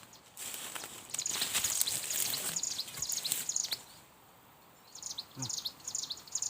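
A small bird's quick, repeated high chirps, broken by a burst of rustling noise lasting about three seconds early on; the chirping resumes near the end.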